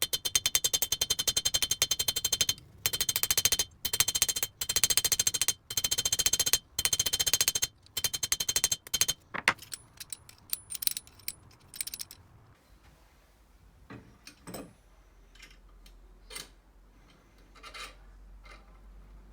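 Bursts of very rapid metal-on-metal striking, each burst a dense run of sharp ringing strikes lasting one to two seconds with short pauses between, stopping about nine seconds in; after that come only a few scattered light clicks and knocks.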